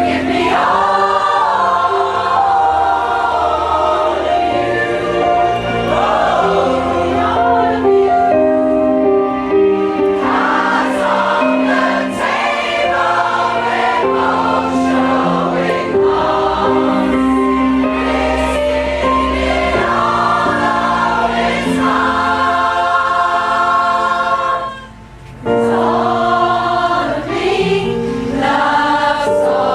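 Pop choir singing in chorus with accompaniment, sustained notes over a steady bass line, breaking off briefly about 25 seconds in before resuming.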